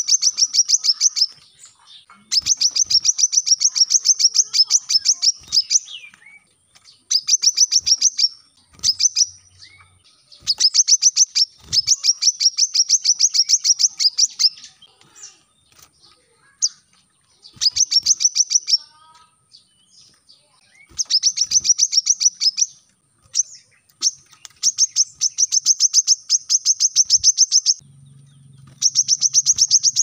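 Brown-throated sunbird (kolibri kelapa) singing: repeated rapid-fire runs of high, evenly spaced chip notes, each run lasting one to four seconds with short pauses between.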